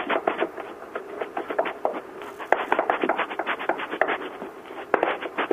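Spatula stirring and scraping thick choux pastry dough in a stainless steel saucepan, with irregular knocks and scrapes against the pan several times a second, as the dough is dried out over the heat.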